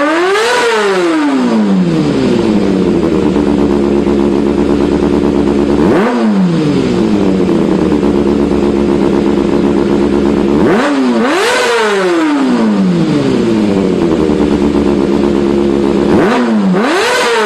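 Kawasaki ZX-25R's 250 cc inline-four revved through an Austin Racing aftermarket exhaust: it is blipped four times, with a quick short blip in the middle. Between blips the revs fall back smoothly to a steady idle.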